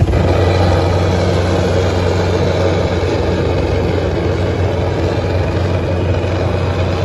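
Preheating torch burning steadily on the rail ends before the thermite pour: a loud hiss over a low hum.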